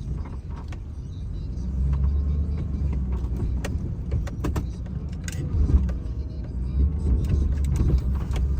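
Snow plow truck's engine running steadily with a low rumble that rises and eases as the truck maneuvers, with scattered knocks and clicks throughout.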